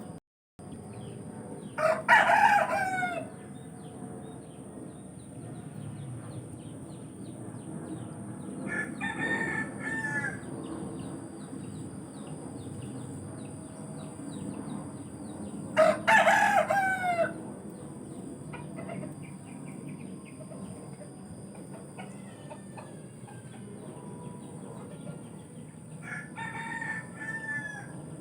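Roosters crowing: two loud crows, about two seconds in and about sixteen seconds in, each lasting about a second and a half, with two fainter crows around nine seconds and twenty-six seconds in. A steady high-pitched whine runs underneath throughout.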